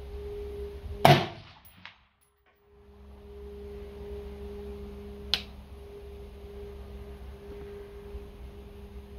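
A single shot from an AR-15 with a Radical Firearms RF-15 upper and muzzle brake, firing a .223 handload, about a second in. About four seconds later comes a sharp clang with a brief ring: the bullet striking the steel plate downrange. A steady hum runs underneath.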